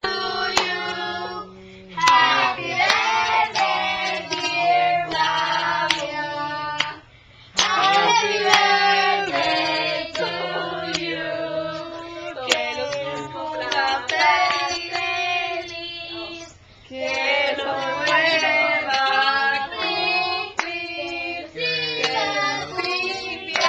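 A small group of women and children singing a song together in phrases, with hand claps along with it.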